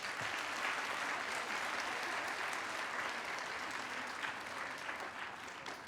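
Audience applauding, a dense steady clapping that begins to thin out and fade near the end.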